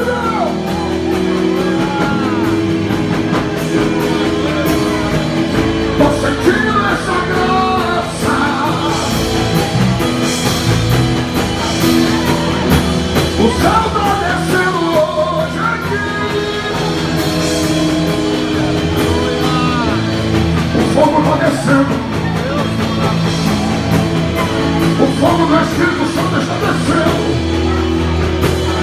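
Live worship band playing with a lead singer, sustained keyboard chords held under a sung melody.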